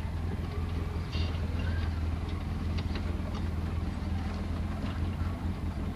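Quad bike (ATV) engine running at low speed over a rocky trail, a steady low drone with scattered knocks and rattles from the rough ground.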